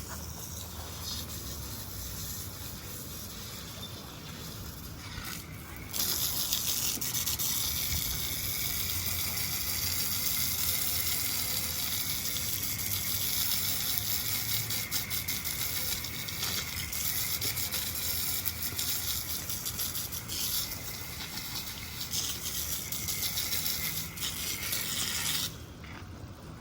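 Water spraying from a hose to wash down a newly built stone bench. It is a loud, steady hiss that starts abruptly about six seconds in and cuts off near the end.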